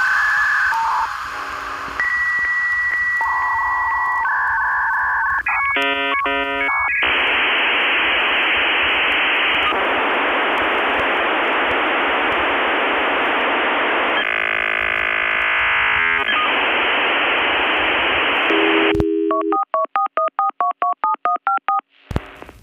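Telephone-line tones: a few steady beeps and a held high tone, then a long stretch of hissing line noise, then a quick run of touch-tone dialing beeps, about four a second, near the end.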